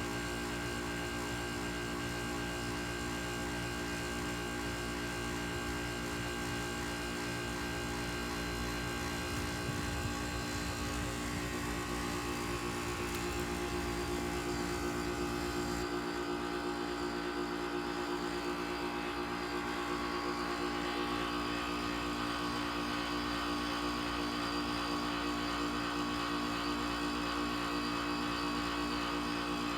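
Goodman GSZ14 heat pump outdoor unit running steadily through a defrost cycle, a humming, whirring mix of several steady tones. The sound changes partway through: a new higher tone comes in, and a few seconds later the high hiss drops away.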